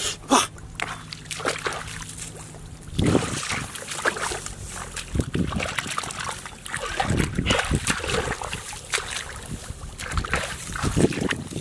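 Shallow muddy water splashing and sloshing in irregular strokes as hands grope and dig through the mud and water of a ditch, with feet wading.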